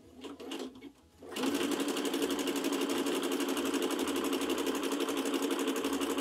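Home sewing machine starting about a second in and then stitching steadily at an even, rapid rate, sewing a zigzag stitch with the needle swinging left and right.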